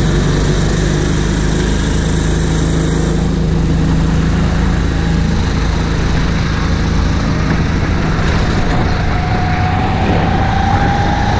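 Go-kart engine running steadily, with a slowly rising tone over the last few seconds.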